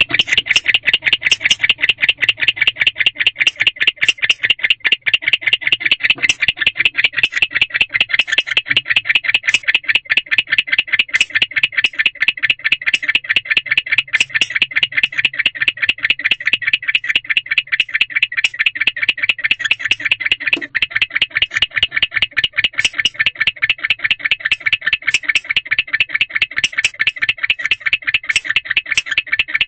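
Male barn owl chirping inside a nest box: a rapid, steady run of short chirps, several a second, kept up without a break.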